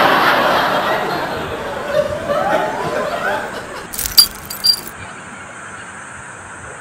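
Laughter, then a few short metallic clinks about four seconds in.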